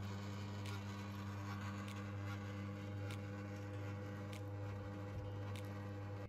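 Small electric screw oil press running steadily as it presses pumpkin seeds, a low motor hum with a faint click about every second and a quarter.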